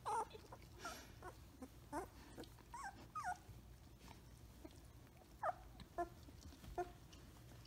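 Samoyed puppy whimpering and squeaking in play: about a dozen short, high, sliding calls, close together for the first three seconds or so, then three more spaced out near the end.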